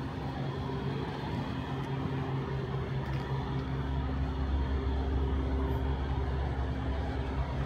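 Motor vehicle engine running with a steady low hum, its deeper rumble swelling about three seconds in.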